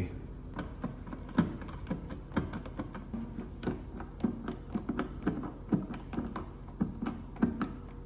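Hand screwdriver turning the mounting screw of a plastic old-work electrical box, tightening its wing clip against the drywall: a run of irregular small clicks and taps, a few a second.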